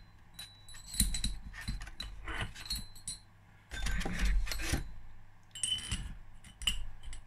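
Steel spacer tubes from a bearing extractor kit being handled, clinking and scraping against each other and against the puller's threaded bar as one is set over it. The sound comes in several short bursts of clinks and scrapes.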